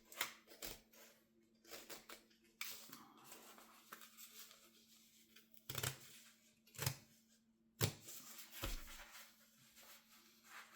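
Scissors snipping through fabric pinned to a paper template, a run of separate cuts at an uneven pace with short pauses between them.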